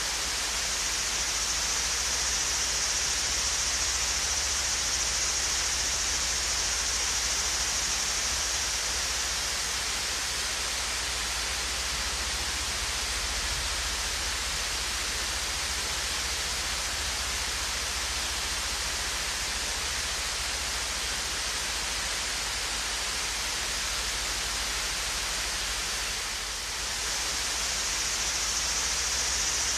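Steady, even rush of water pouring over the small Swayze Falls waterfall, with a low rumble beneath and a brief slight dip in level about 26 seconds in.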